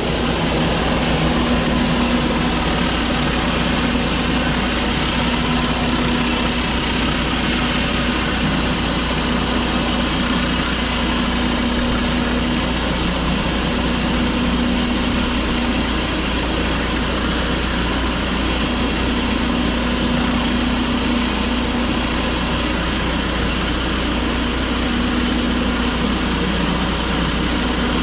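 Pressure washer engine running steadily, with a constant hiss over a low hum.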